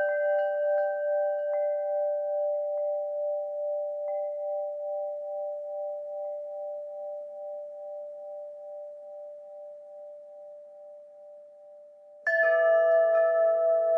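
Wind chimes ringing: a few long tones fade slowly with a gentle wavering, touched by a couple of faint taps. About twelve seconds in, several chimes are struck together, louder, and again near the end.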